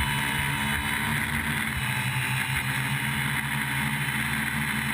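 DJI F450 quadcopter's electric motors and propellers whirring steadily in flight, heard from the GoPro mounted on its frame.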